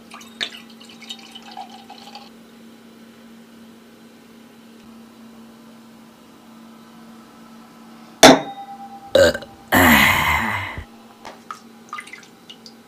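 A loud burp about ten seconds in, lasting about a second and falling in pitch, just after two sharp clicks. A faint steady hum lies underneath.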